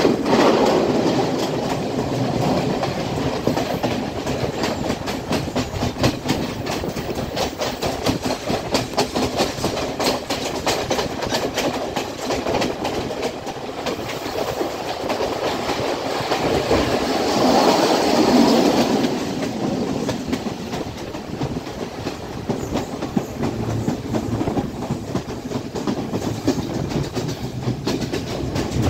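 Class S12 diesel multiple unit running along the line, heard from outside the open side of the carriage: a steady clatter of wheels over the rail joints, swelling louder for a couple of seconds about two-thirds of the way through.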